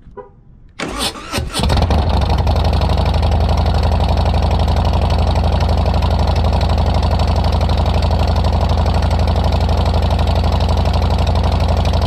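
Harley-Davidson Heritage Softail V-twin engine cranked on the electric starter about a second in. It catches almost at once and then idles steadily and loudly.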